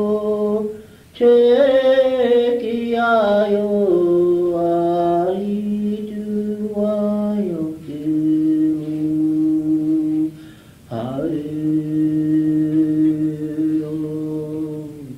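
Unaccompanied chanting in long held notes that step down in pitch, breaking off for breath about a second in and again near ten seconds, heard on an old cassette recording.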